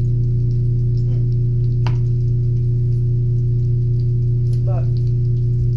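A loud, steady low electrical hum with several overtones, unchanging throughout, with a few faint brief higher sounds about two seconds in and again near the end.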